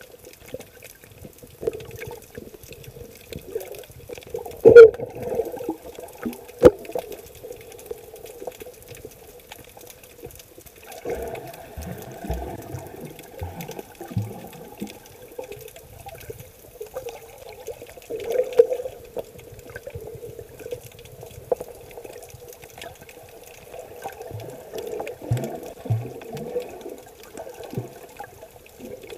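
Sea water heard underwater by a submerged camera: muffled, irregular sloshing and surging with a faint steady hum. There are two sharp knocks, about five and seven seconds in.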